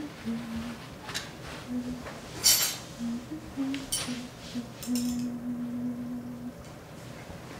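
Paper napkin rustling and metal cutlery clinking as a paper-towel bib is tucked into a collar and a fork and knife are handed over: a few sharp clicks and short rustles, the loudest about two and a half seconds in. Under them runs a soft low tune of short held notes, ending in a longer note near the middle.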